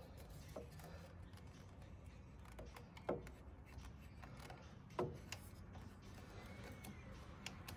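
Faint clicks and knocks of a motorcycle oil cooler with a cooling fan attached being handled and pushed into its mount, with two sharper knocks about three and five seconds in.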